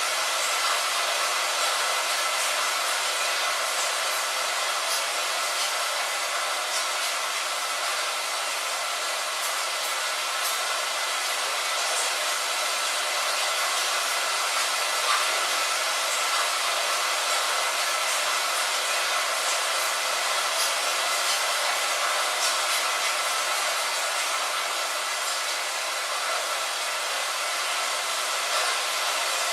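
Steady rain falling, an even hiss with scattered faint ticks of single drops striking.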